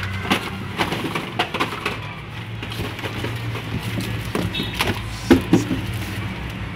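Small cardboard product boxes knocking and sliding against each other and onto the wooden floor, with a large cardboard carton being handled: a string of sharp taps and rustles, loudest about five seconds in.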